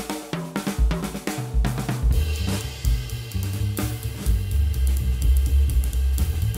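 Upbeat instrumental background music with a drum kit beat; about two seconds in, a sustained bass line and held higher tones come in under the drums.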